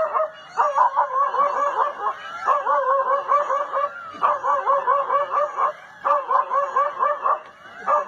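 A dog giving quick, high, pitched yips in bursts of about a second and a half with short pauses between, five bursts in all, each with several yips a second.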